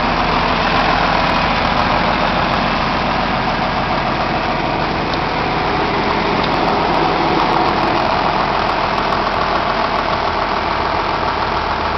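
John Deere 4440 tractor's six-cylinder diesel engine idling steadily.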